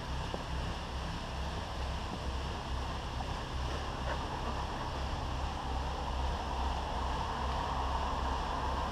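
Wind noise on the microphone: a steady rushing with an uneven low rumble.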